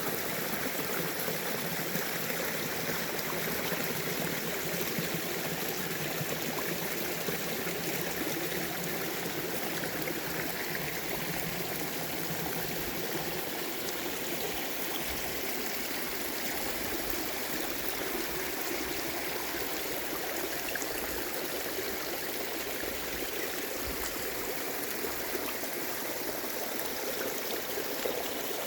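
Mountain stream babbling steadily over rocks.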